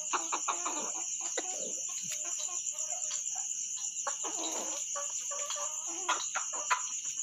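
Ko shamo bantam pullets clucking in short, irregular calls over a steady high-pitched insect chorus.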